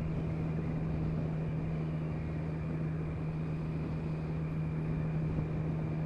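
Motorcycle engine running at a steady cruise, holding one even pitch, under a constant haze of wind and road noise.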